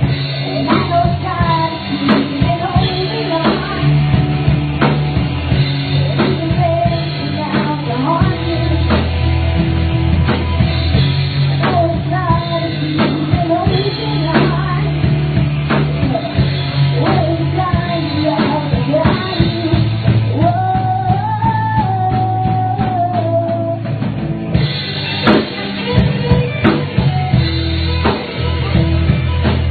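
Live rock band playing: a lead singer over electric guitars, bass and drum kit, with one long held note a little past the middle.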